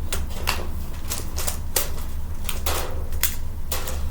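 A 2x2 Rubik's cube being twisted by hand: a quick, irregular run of plastic clicks and clacks as its layers turn.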